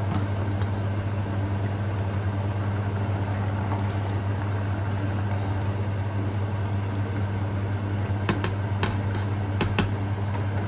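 Pasta water at a rolling boil in a stainless-steel pot, over a steady low hum. A plastic pasta server stirs the linguine and clicks against the pot several times near the end.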